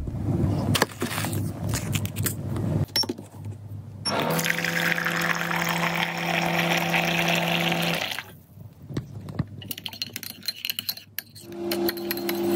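Instant hot water dispenser pouring a stream of hot water into a ceramic mug for about four seconds, with a steady hum under the splashing. Then a metal spoon clinks against the mug while the drink is stirred.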